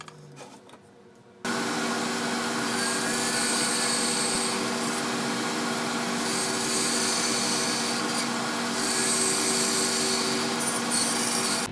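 An electric power tool running steadily while cutting wood, with a steady motor hum under the cutting noise. It starts abruptly about a second and a half in.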